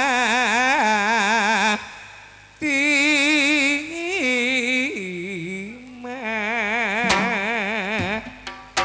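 A singer holds long, melismatic notes with wide vibrato in several phrases of a traditional gending song, with a short pause about two seconds in.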